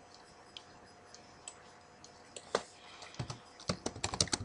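Keystrokes on a computer keyboard while text is deleted and retyped: a few isolated key clicks at first, then quicker runs of typing in the second half.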